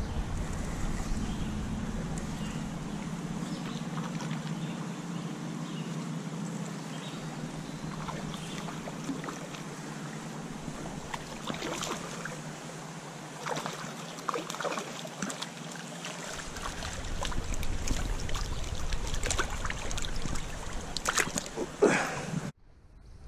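Steady rush of a shallow creek's flowing water, with low wind rumble on the microphone at the start and again in the second half. Scattered short knocks and rustles of handling come in the second half, and the sound cuts off abruptly near the end.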